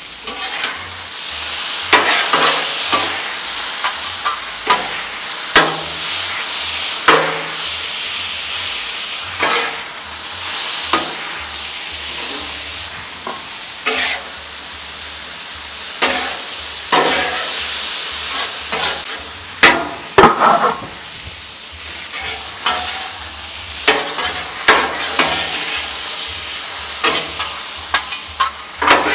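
Thin-sliced beef frying and sizzling on a steel Blackstone flat-top griddle, a steady hiss, while a metal spatula scrapes and clacks on the griddle surface every second or two as the meat is turned.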